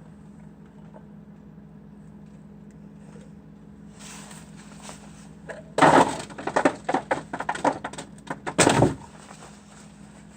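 Food containers clattering and knocking as they are handled and thrown out of a refrigerator, in a quick run of loud knocks about six to nine seconds in, over a steady low hum.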